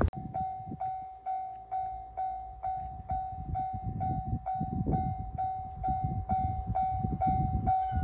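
Japanese level-crossing warning bell ringing, an electronic ding repeating evenly nearly three times a second, the signal that a train is approaching and the crossing is closing. Low gusts of wind rumble on the microphone underneath, and a second higher tone joins near the end.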